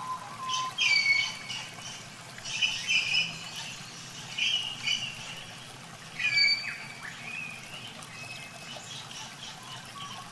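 Birds calling in several short, high-pitched bursts, over a low wash of sloshing water.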